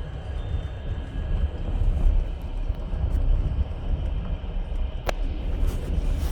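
Passenger train wheels rolling on the rails, heard from inside the carriage as a steady low rumble, with one sharp click about five seconds in.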